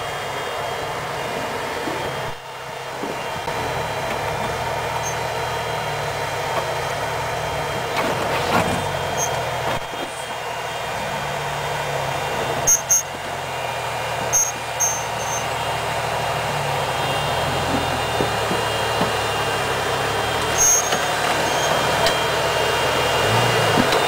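Off-road 4x4's engine running at low revs as it crawls over boulders, its note rising and falling a little, with a few brief sharp ticks from the rocks and running gear in the second half.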